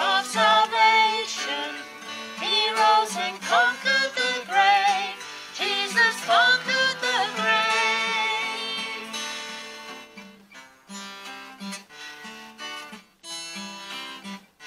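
A woman singing a worship song to strummed acoustic guitar. About nine seconds in her voice holds a last note and fades, leaving the guitar strumming on its own.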